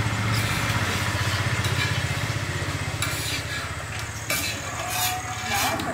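A small engine running steadily, a low pulsing hum that is loudest in the first half. From about four seconds in, a metal spatula scrapes and clinks a few times against a large iron pan while cooked chilli parotta is scooped out.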